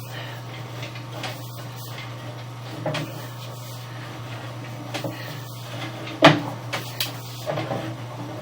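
Steady low hum from sewer-camera inspection gear, with irregular knocks and clunks as the camera push cable is handled and fed down the drain line; the loudest knock comes about six seconds in.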